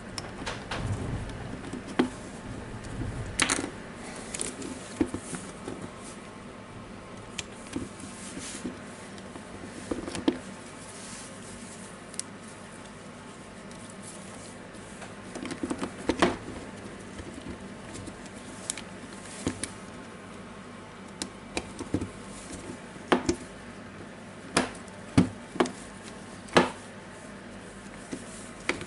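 Irregular clicks and light knocks of drill parts being handled and seated in the housing of a Makita DDF482 cordless drill as it is reassembled after an armature replacement. The knocks come closer together near the end.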